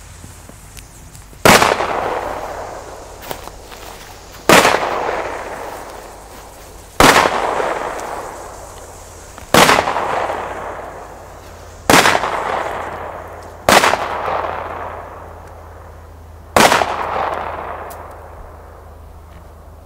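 Pyroco Mega Petarda firecrackers exploding: seven loud bangs a couple of seconds apart, each trailing off in a long echo.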